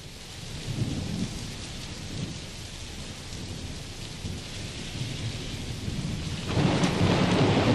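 Thunderstorm: steady rain with low rolling thunder, swelling up over the first second. About six and a half seconds in, the rain and thunder grow much louder.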